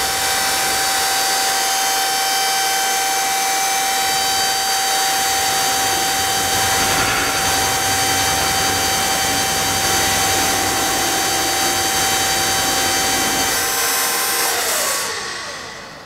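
Hydraulic pump unit running steadily with a high whine while the selector lever is held, driving the hoist that moves a suspended bulk bag across the frame. Near the end the whine falls in pitch and fades as the pump winds down.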